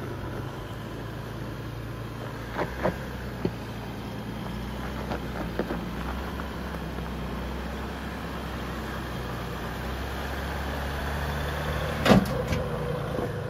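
Jeep Gladiator's 3.0-litre V6 EcoDiesel engine running low and steady as the truck crawls over rough dirt. A few light clicks come about three seconds in, and one sharp knock, the loudest sound, near the end.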